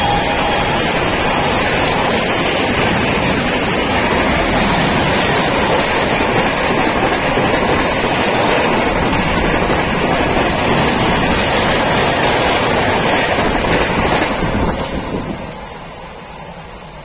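Express train of LHB passenger coaches passing close by at speed: a loud, steady rush of wheels on rail with wind buffeting the microphone. The rush dies away about fifteen seconds in as the last coach goes by.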